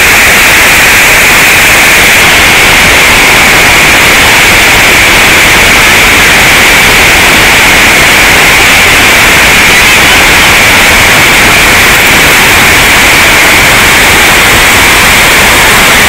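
Water pouring over a check dam: a loud, steady rushing of falling water close to the microphone, unchanging throughout.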